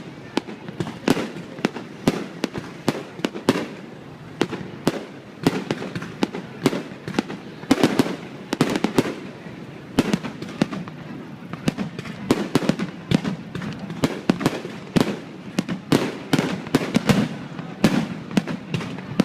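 Fireworks display going off in a dense, irregular barrage of sharp bangs, several a second, some much louder than others.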